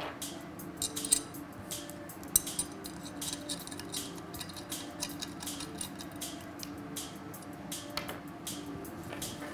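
Small metal camera-rig parts clinking and clicking irregularly as they are handled and fitted together, with background music underneath.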